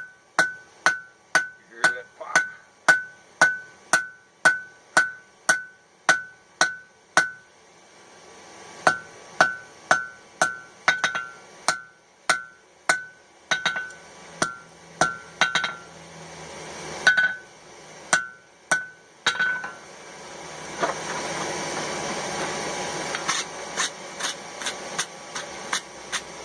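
Blacksmith's hand hammer striking steel on an anvil in a steady run of blows, about two a second, each with a short bright anvil ring. The blows stop briefly twice, and near the end they give way to a steady rushing noise.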